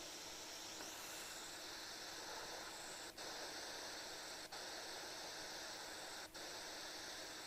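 Steady soft hiss from a sleep recording of a snorer wearing a Breathe Right nasal strip, with no snores, only faint breathing-like noise. Three very short dropouts break it.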